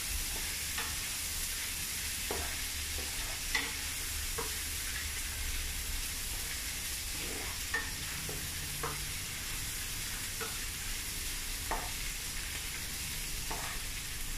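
Pounded ginger, garlic, shallots and anchovies sizzling in hot oil in a nonstick pan, with a spatula stirring and scraping against the pan every second or two.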